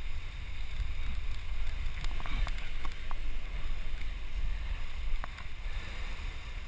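Wind buffeting a head-mounted camera's microphone, a gusty low rumble, with a few faint clicks between about two and five seconds in.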